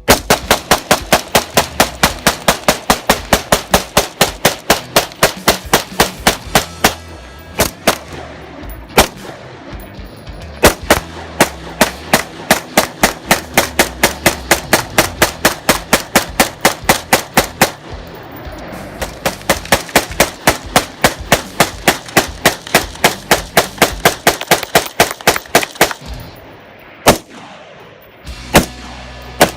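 Rapid semi-automatic gunfire on a shooting range: long strings of shots at about four a second, with short breaks and a few single shots near the end.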